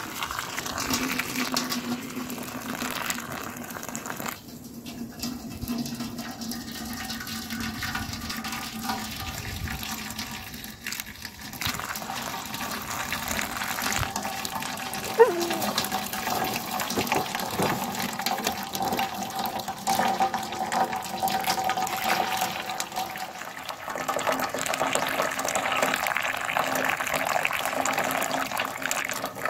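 Hot maple syrup poured in a thin stream from a pot into a paper filter in a funnel over a mesh strainer, a steady liquid trickle and splash as the nearly finished, reduced sap is filtered once more.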